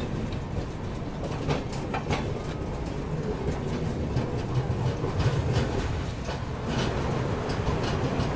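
Passenger train running, heard from the coach's open doorway: a steady low rumble of wheels on the rails with irregular clicks and clacks.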